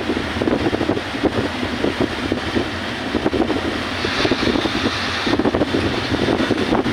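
Wind buffeting the microphone on a moving boat, over the steady low drone of the boat's engine and the rush of its wake.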